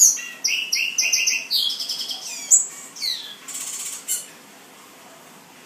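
Male black-and-white seedeater singing: a fast run of repeated high chirps and downward-slurred notes, with a buzzy phrase near the end, stopping about four seconds in.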